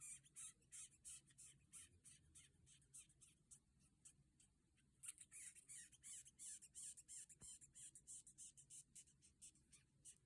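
Longhorn beetle stridulating: a run of faint, short, high-pitched squeaks, three or four a second, pausing briefly about four seconds in and then resuming more densely.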